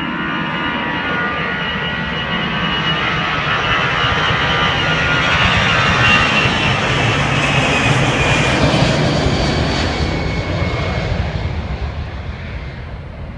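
Airliner's engines at takeoff power, a loud roar with a high whine, growing to its loudest about halfway through as the plane passes, the whine sliding down in pitch, then fading as it moves away.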